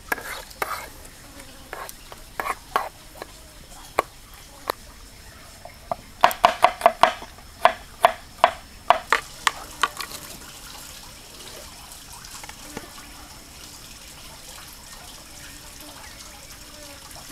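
Metal spoon stirring and knocking against a wooden bowl as a wet sauce is mixed: scattered knocks at first, then a quick run of about a dozen taps from roughly six to ten seconds in. After that only a steady high insect drone remains.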